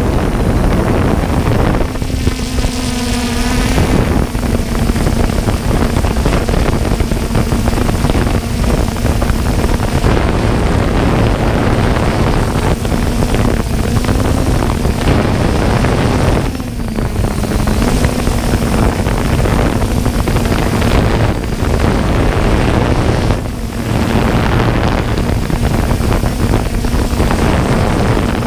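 Multirotor drone's motors and propellers humming steadily, picked up by the camera mounted on the drone, under heavy wind and rotor-wash noise on the microphone. The hum wavers slightly in pitch as it flies and dips in loudness briefly twice in the second half.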